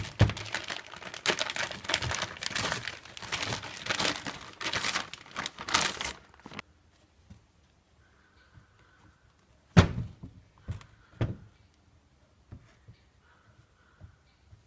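Plastic packaging crinkling and rustling as a new rubber turbo hose is unwrapped and handled, stopping after about six seconds. A few dull thunks follow, the first the loudest, about ten and eleven seconds in.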